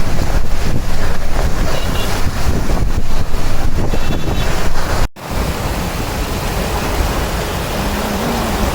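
Strong wind buffeting the microphone over heavy rain, loud and gusty. About five seconds in the sound breaks off for an instant, then carries on as a steadier rain hiss.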